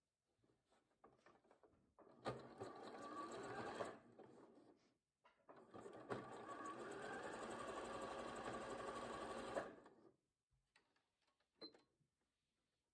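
Bernette b38 computerized sewing machine stitching a zigzag seam through chunky knitted fabric, in two runs: a short one about two seconds in, then a brief stop, then a longer steady run of about four seconds.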